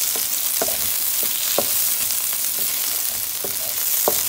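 Dried fish, onions and garlic sizzling in mustard oil in a frying pan, with a wooden spatula stirring and scraping the pan in short strokes, roughly two a second.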